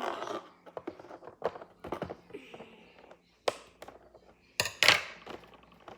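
Handling of a plastic-packaged toy figure: scattered clicks and knocks, with a short scraping rustle partway through and the sharpest knocks a little before the end.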